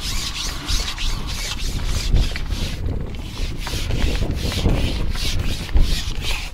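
Rhythmic rubbing or scraping, about three strokes a second, over a low rumble of wind on the microphone.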